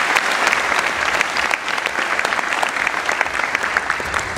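An audience applauding steadily: dense clapping from many hands.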